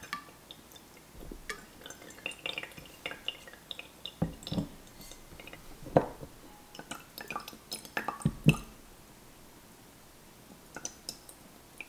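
Scattered clicks, clinks and knocks of a wine glass and a small black plastic accessory being handled and set down on a wooden countertop, with a few heavier thuds about four, six and eight seconds in. After about nine seconds only a few faint ticks are left.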